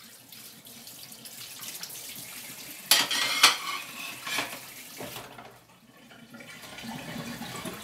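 Kitchen tap running into a sink while dishes are washed by hand, with a few sharp clinks of crockery and cutlery about three seconds in.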